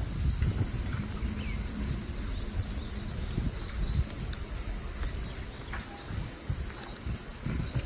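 Steady high-pitched chorus of insects, with a low rumble of wind and a few scattered bird chirps.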